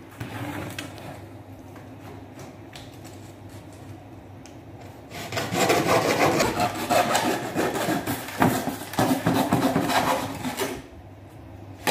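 Hand duct-cutting tool's blade drawn through a foil-faced foam duct panel, a rough rasping scrape of many short strokes that starts about five seconds in and stops shortly before the end. This is a corner piece being cut off the panel to fold it into a duct box. Before the cut there is only faint handling noise.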